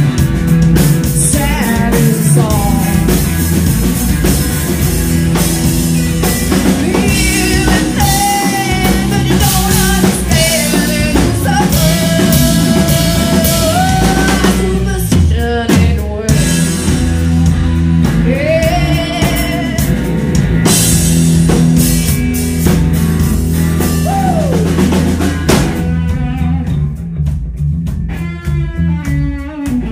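Live rock band playing electric guitars, bass guitar and drum kit, with a lead electric guitar playing long bent notes that slide up and down over the beat. Near the end the cymbals drop away and the guitar carries on with quicker runs.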